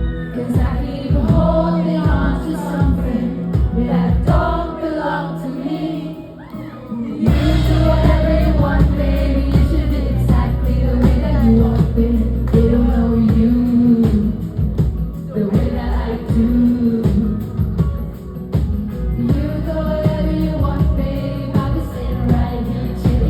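Live pop music played loud: a singer over the band, with the bass and drums coming in much heavier about seven seconds in.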